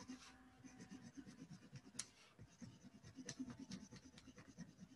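Coloured pencil shading back and forth on copy paper: a faint, quick, continuous scratching, with a couple of sharp ticks about two seconds in and again a little after three seconds.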